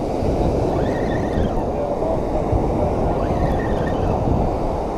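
Wind rumbling on the microphone over steady ocean surf on a beach, with faint distant voices now and then.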